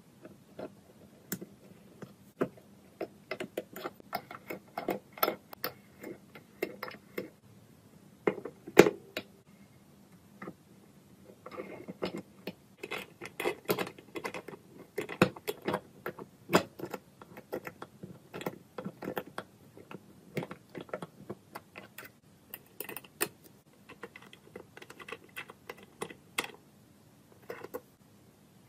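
Small metal parts of a miniature Stirling engine clicking and tapping against each other as they are fitted together by hand: steel connecting rods slipped onto crank pins and screws turned with a small screwdriver. The clicks come irregularly, several a second at times, with one sharper knock about nine seconds in.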